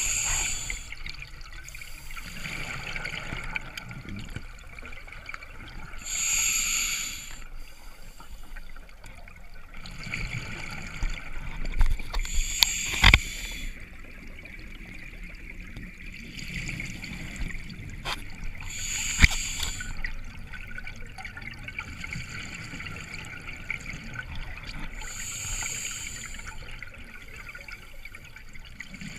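Open-circuit scuba diver breathing underwater, heard through a camera housing: a short regulator hiss about every six seconds, with exhaled bubbles gurgling between breaths. A couple of sharp clicks stand out.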